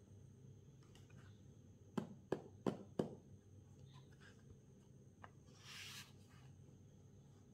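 Hands handling a smartwatch and its packaging close to the microphone: four quick, light taps about two seconds in, then a faint click and a brief rustle.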